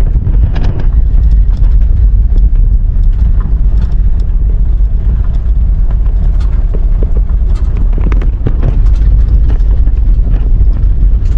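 A truck driving over rough off-road ground, heard from inside: a steady low rumble with scattered knocks and rattles as it bounces along.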